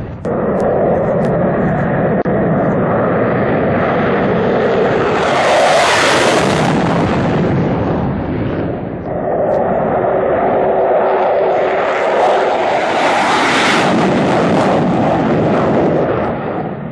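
Military fighter jets taking off on full afterburner: a loud, continuous jet roar that swells twice as each aircraft passes, the first time about a third of the way in and again past the middle.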